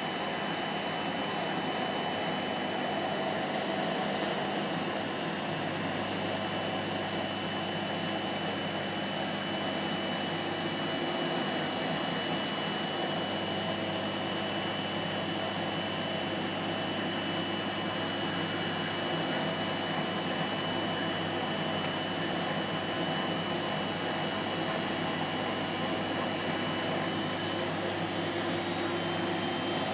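Beko Eco Care WMA 1510 W washing machine spinning its drum at speed in the final spin: a steady hum and rush with a constant high whine over it.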